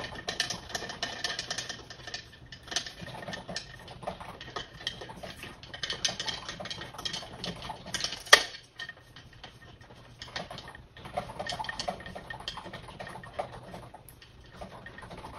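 Small irregular clicks and scrapes of a screw being threaded by hand into an end-table frame and the parts being handled, with one sharp clink a little past halfway.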